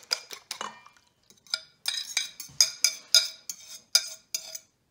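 A metal fork clinking against a ceramic plate as it scrapes beaten eggs out into a mixing bowl. A quick run of clinks is followed by a short pause about a second in. Then comes a steady series of ringing clinks, about four or five a second, that stops shortly before the end.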